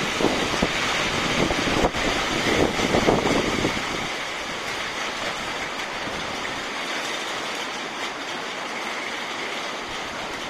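Tornado winds rushing with a steady hiss, gusting hard in the first four seconds with heavy buffeting on the microphone, then settling into a steadier rush.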